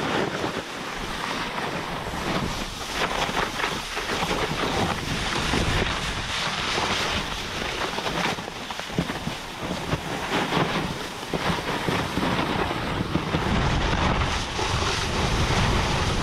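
A splitboard sliding down a snow slope: a continuous, uneven hiss and scrape of the board on the snow, mixed with wind buffeting the microphone. It grows louder in the last couple of seconds.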